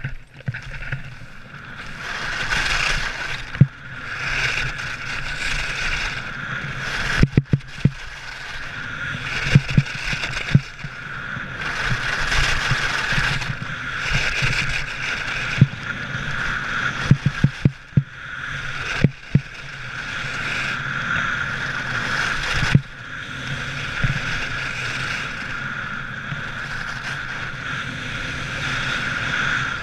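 Skis scraping and hissing over packed snow with wind buffeting the microphone during a downhill run, the rush swelling and easing with each turn. Scattered sharp knocks come through it.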